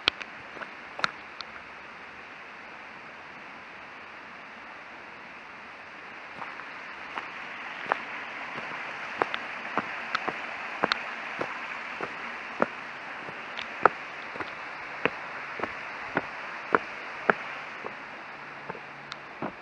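Footsteps on a gravel and leaf-strewn forest path, about two steps a second, over the steady rush of a mountain stream that grows louder from about six seconds in until near the end.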